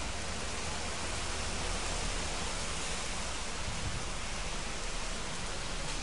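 Heavy rain pouring down with floodwater running through the street, a steady hiss.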